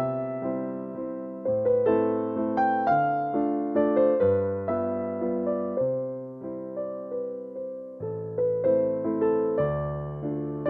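Background music: piano playing a melody over chords, each note struck and then fading away.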